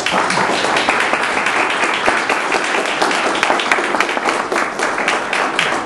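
Audience applause: many hands clapping together, steady and loud.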